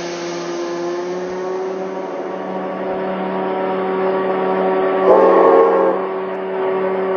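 Locomotive engine sound effect: a steady running drone whose tone slowly rises in pitch, with a short horn-like blast about five seconds in.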